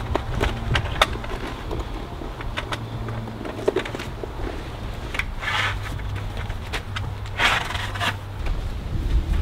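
An ARQ 270° vehicle awning being pulled open by hand: fabric rubbing and scraping with scattered clicks and knocks from its frame, and two longer rustles past the middle, over a steady low rumble.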